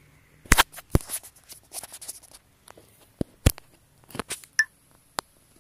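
Irregular sharp clicks and knocks of a plastic phone case being pried at and handled as someone tries to pull it off the phone.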